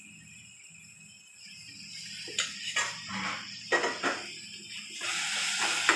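A spoon knocking and scraping against a steel pot as ginger-garlic paste is added to frying onion-tomato masala, five or six knocks in the middle. Then, about five seconds in, a steady sizzle sets in as the paste starts to fry.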